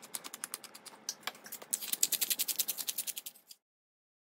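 Hand-twisted pepper mill grinding black pepper: a fast, even run of dry clicks that cuts off suddenly about three and a half seconds in.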